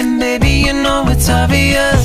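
Background pop music with a bass line and layered synth parts.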